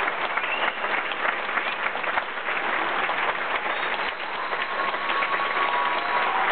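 Audience applauding, a dense patter of many hands clapping. About four seconds in, a held steady note joins the applause.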